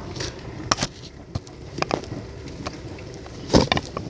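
Knife slicing a lemon into rounds: a handful of separate sharp knocks as the blade goes through, the loudest about three and a half seconds in.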